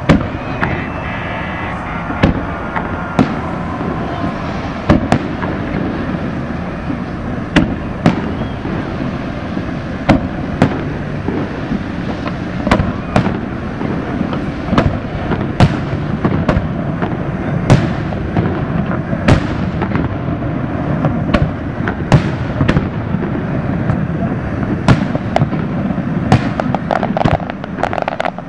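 Aerial fireworks shells bursting overhead: sharp booms, one every second or so at irregular spacing, some in quick pairs, over a steady hum of crowd voices.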